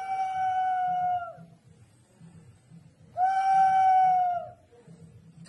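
Peruvian clay water whistle, a hollow ceramic animal-shaped vessel half-filled with water, giving two long steady whistles of about a second and a half each, one at the start and one about three seconds in. Each dips slightly in pitch as it dies away.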